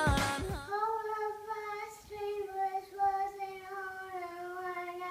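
A young girl singing one long, steadily held note with a slight break about two seconds in. Music fades out in the first second.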